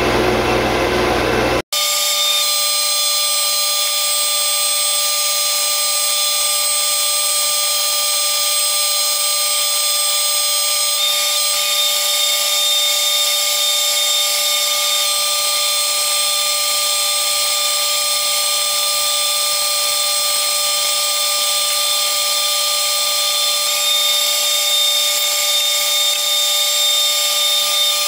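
Metal lathe turning a 1144 stress-proof steel bar with an indexable insert tool: a steady high machining whine made of several constant tones over hiss. The sound changes abruptly about two seconds in.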